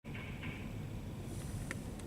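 Storm wind from a European windstorm: a steady low rushing noise. A brief higher sound comes near the start, and a sharp click about one and a half seconds in.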